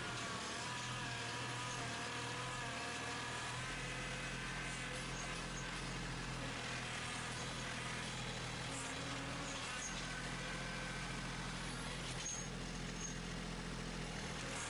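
Kubota B2650 compact tractor's three-cylinder diesel engine running steadily while working the front-end loader, with a higher whine over it that wavers in pitch for the first few seconds.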